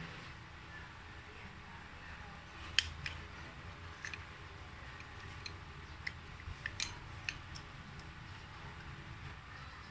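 Light metallic clicks and clinks as a scooter's front brake caliper and its bolts are handled and fitted together by hand: about a dozen scattered ticks, heaviest around three and seven seconds in, over a faint steady background hiss.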